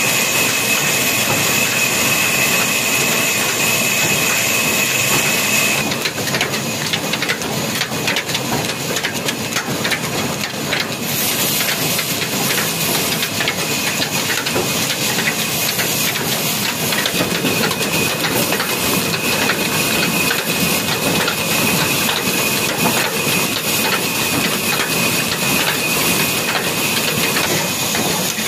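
Old Ruston stationary diesel engine running steadily, driving the belt of a wood saw, with a dense, even clatter of rapid knocks. A thin high whine sits over it for the first six seconds and comes back later.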